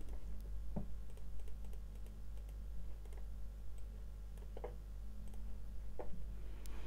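A few faint, scattered clicks of a computer mouse and keyboard over a low steady hum.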